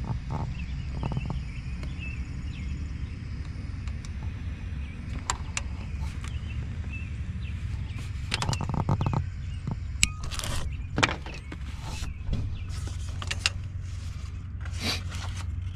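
Scattered clicks, knocks and light rattles of hand work on parts and tools, with a quick run of clicks about halfway through and a few scrapes later, over a steady low hum.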